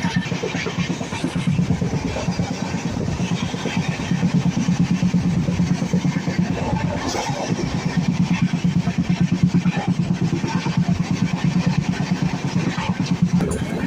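A vehicle running steadily: a low engine-like drone with a fast, even pulse.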